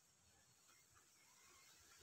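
Near silence: faint outdoor background, with no distinct hoe strike.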